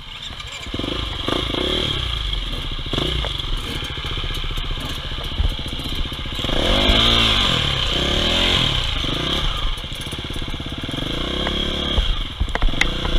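Enduro dirt bike engines running and being blipped at low speed, with a sharp rev up and back down about seven seconds in.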